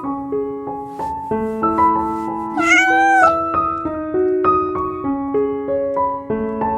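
Background piano music playing a steady run of notes, with one drawn-out cat meow a little before the middle that rises and then falls in pitch.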